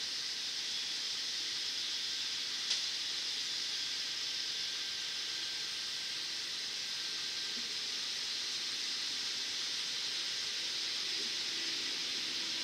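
Steady hiss, with one sharp click about three seconds in. A faint low hum of the approaching train's distant diesel locomotives grows over the last few seconds.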